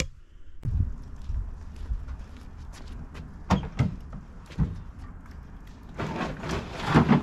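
A few sharp knocks and clunks over a steady low rumble, ending in a louder run of clattering knocks.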